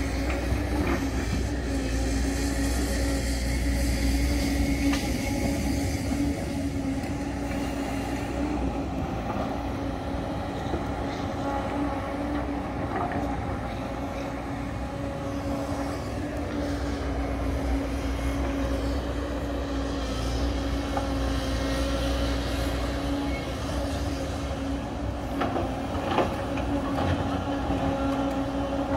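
Hydraulic excavator's diesel engine running at steady working revs, a constant drone, as its bucket digs into broken rock, with a few knocks of stone near the end.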